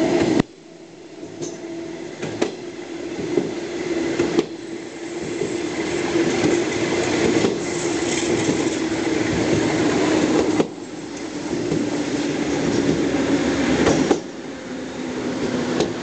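Electric multiple unit train running along the track, heard from its rear. Steady wheel-on-rail noise with a low hum and a few sharp clicks over the rails. The noise drops abruptly about half a second in, again about two-thirds of the way through and near the end, building back up each time.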